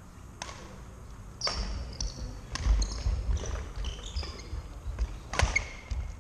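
Badminton rally: sharp clicks of rackets striking the shuttlecock, with players' shoes squeaking on the court floor and footfalls on the boards.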